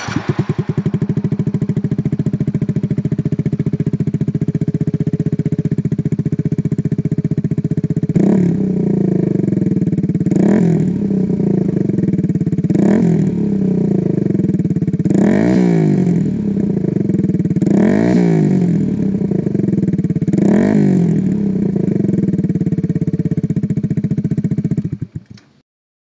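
Kawasaki Z125 Pro's single-cylinder four-stroke engine running through an iStunt aftermarket exhaust with its silencer insert fitted. It idles steadily, then is revved in six short blips, each rising and falling back to idle, about every two and a half seconds.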